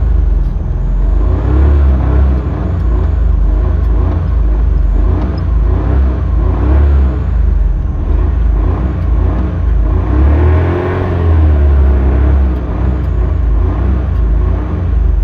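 Old Maruti car engine being revved up and down over and over, with a heavy low rumble. The strongest rev comes about ten seconds in.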